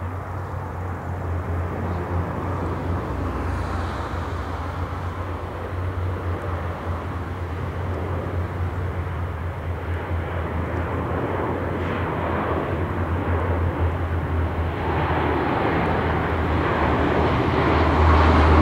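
Aircraft engines droning overhead, a steady low hum that grows louder toward the end, from the transport planes dropping parachutists.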